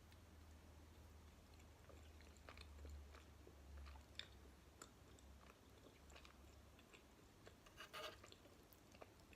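Faint, close-up chewing of soft jelly and gummy candy: scattered small wet mouth clicks, with a denser run of them about eight seconds in, over a low steady hum.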